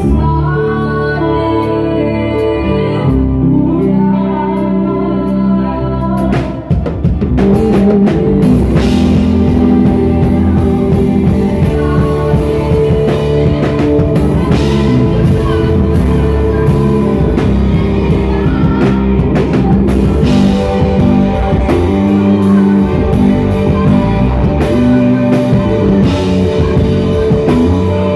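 Live worship band playing with singing: electric bass, drums and guitar. The song starts softly with held chords and a singing voice, then the drums and full band come in about a quarter of the way through and carry on at full strength.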